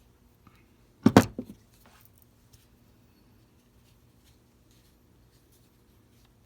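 A quick cluster of three or four knocks about a second in, from steel linesman pliers being handled and set down, over a faint steady hum.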